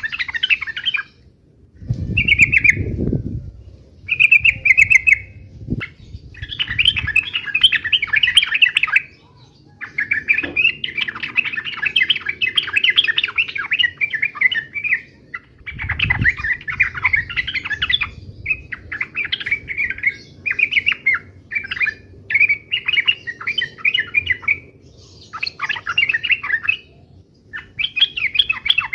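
Sooty-headed bulbul (trucuk) singing in full voice: bursts of rapid chattering notes, each one to several seconds long, with short pauses between them. This is the fast, aggressive 'uplik' fighting-style chatter. A low thud comes about two seconds in.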